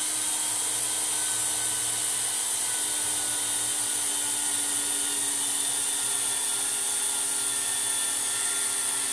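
Cordless drill running steadily at constant speed, a small bit cutting into the half-inch-thick aluminum reservoir cap of a Bilstein remote reservoir shock. It makes a continuous whine with a hiss over it.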